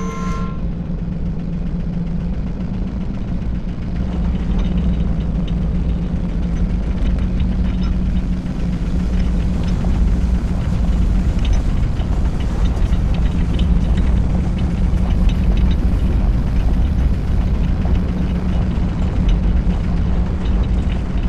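Sound effect of a giant machine: a steady, loud, low mechanical rumble and hum that grows louder about four seconds in, with faint clanks.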